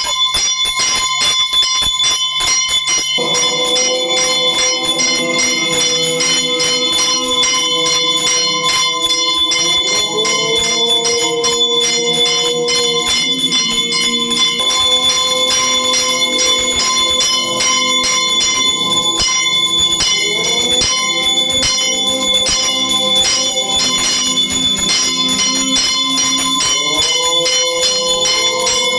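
Temple bell rung rapidly and without pause during worship, its ringing steady throughout. Underneath, from about three seconds in, a lower pitched layer of music rises in swoops every several seconds.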